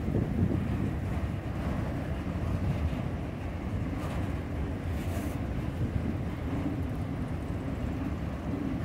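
Autorack freight cars rolling past close by: a steady low rumble of steel wheels on the rails.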